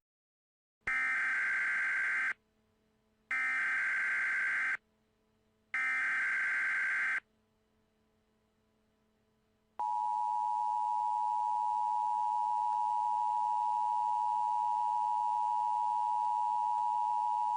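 Emergency Alert System header: three bursts of SAME digital data tones, each about a second and a half long, followed a couple of seconds later by the steady two-tone EAS attention signal, held for about eight seconds.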